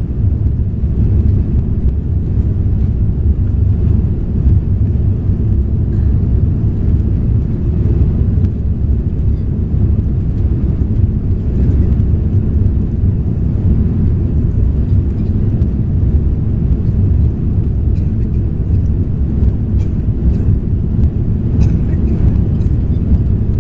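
Steady low rumble of an Airbus A340-300 climbing out after takeoff, heard inside the passenger cabin: its four CFM56-5C engines and the rushing airflow over the airframe, with a few faint clicks near the end.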